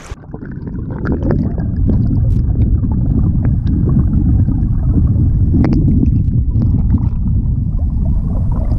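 Fast-flowing creek water heard from under the surface: a muffled, loud, steady rumble and gurgle, swelling over the first second or two, with a few faint scattered clicks.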